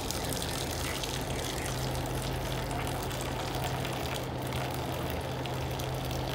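Boiling water poured in a steady stream from an electric kettle into a stainless steel kidney dish of surgical instruments, to sterilise them. A low steady hum sits underneath.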